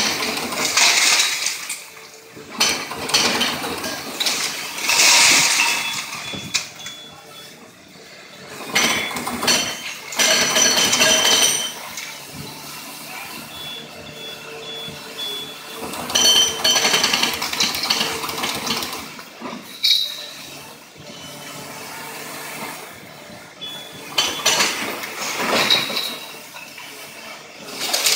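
Case hydraulic excavator tearing down a brick building: masonry and debris crash and clatter down in irregular loud bursts every few seconds, over the steady running of the machine's engine.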